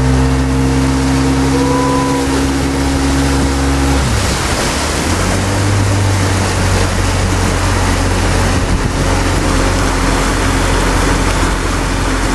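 Pontoon boat's motor running under way, over a steady rush of wind and water. About four seconds in the engine note drops and settles at a lower pitch.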